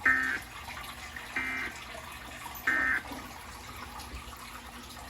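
EAS end-of-message signal: three short bursts of SAME digital data tones, a buzzing two-tone warble sent about a second and a quarter apart, marking the close of a required monthly test of the Emergency Alert System.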